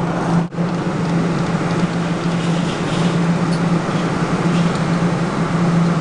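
Steady low hum and an even rush of noise from a running arcade claw machine as its claw is worked, with a brief dropout about half a second in.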